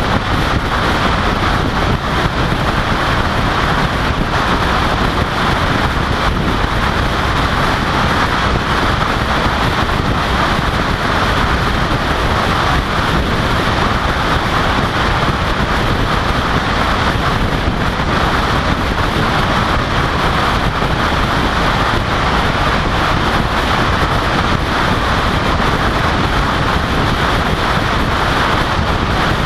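Steady wind rush and road noise of a vehicle driving at freeway speed, heard through an exterior-mounted action camera, with wind buffeting the microphone.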